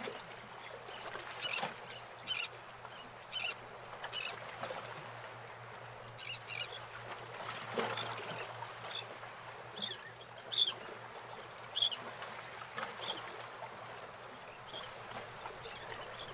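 Birds giving short, irregular high calls over a steady rush of running water, with a faint low hum underneath.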